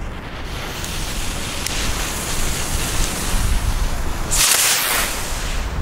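Nico Kick-Starter ground fountains hissing as their fuse burns and they ignite, with a stronger spurt of hiss about four and a half seconds in. Wind rumbles on the microphone.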